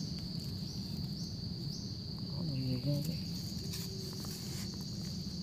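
Insects chirring in a steady, high-pitched drone, with a few light knocks of a digging blade prodding the soil.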